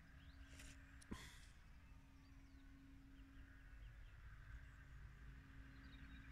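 Near silence: faint outdoor background with a steady low hum, one soft click about a second in, and a few faint high chirps.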